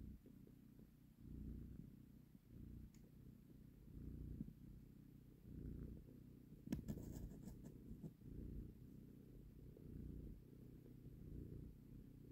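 Cat purring close up, in slow swells that rise and fall with each breath. A few brief clicks sound about seven seconds in.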